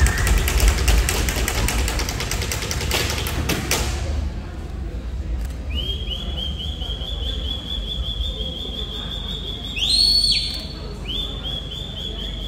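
A dense patter of sharp claps or stamps for the first few seconds, then a shrill whistle blown in quick repeated blasts, with one louder, rising blast about ten seconds in.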